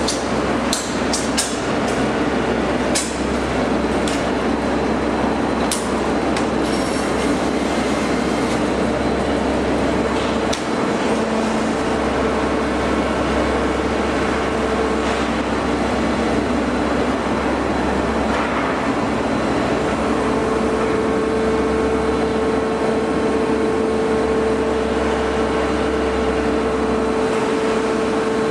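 Maren Propak 2R185 two-ram baler running: a steady machine drone with a few sharp clicks and knocks in the first several seconds, and a steady hum that comes up stronger late on.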